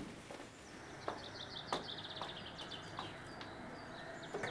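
Small birds twittering, with quick repeated high chirps and a few light clicks in between.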